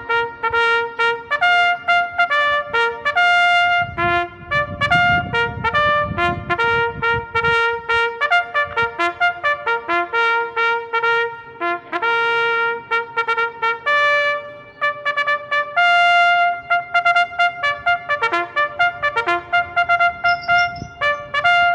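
Trumpet playing a melody of many short notes, with a low rumble underneath for a few seconds about four seconds in.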